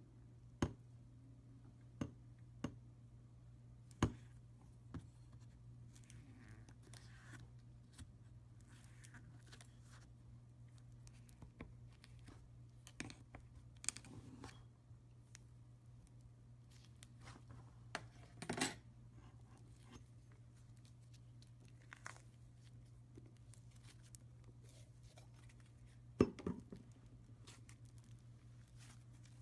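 Slime being handled: scattered sharp clicks, pops and short crackles as it is pressed and pulled, over a steady low hum.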